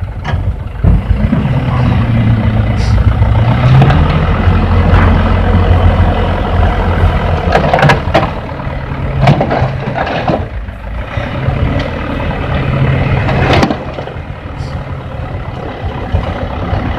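Light dump truck's diesel engine revving up to drive the hydraulic hoist as the loaded bed tips and soil slides out, with several sharp knocks from the bed and tailgate. The engine eases off about three-quarters of the way through.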